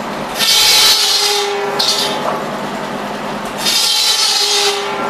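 Tractor-driven buzz saw, a large circular blade, cutting through wooden boards: two loud cuts about three seconds apart, each lasting about a second. Under them the 1955 Ford 800 tractor's engine and the spinning blade run with a steady hum.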